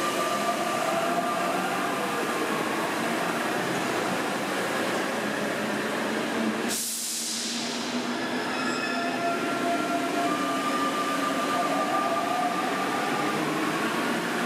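Paris Métro train pulling out of the station: the electric motors whine in tones that glide up and down over the steady rumble of the cars. A sudden hiss cuts in about halfway through and fades over a second.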